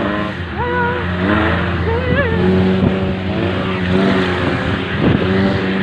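Off-road vehicle's engine running steadily on the move, with people's voices calling out over it and a few knocks about five seconds in.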